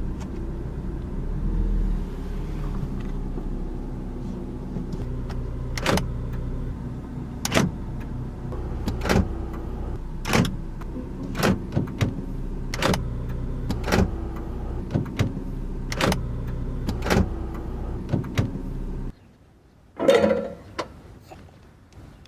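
A car's engine running with a steady low hum, with sharp clicks every second or so through the middle. The hum cuts off about nineteen seconds in, and a short thump follows.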